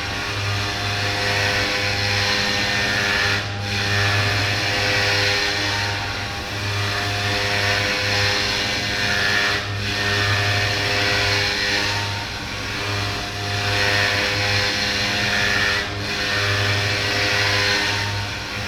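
CNC milling machine running a cut, a steady motor hum with the hiss of the cutter, briefly dipping about every six seconds.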